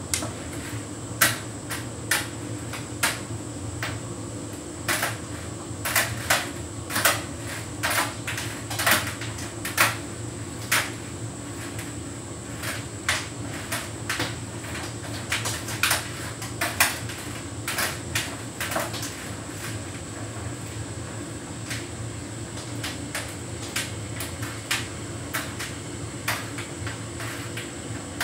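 Hotpoint heat pump tumble dryer running: a steady hum from the machine, with irregular clicks and knocks from the load tumbling in the drum that grow sparser near the end.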